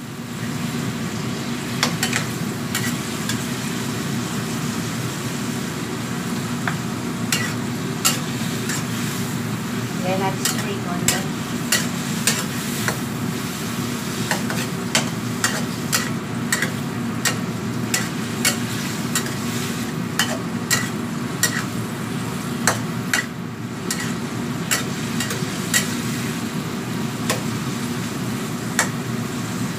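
Metal ladle stirring and scraping bottle gourd pieces around a wok, with irregular sharp clicks and knocks of the ladle against the pan, about one or two a second. The vegetables sizzle in the hot oil over a steady low hum.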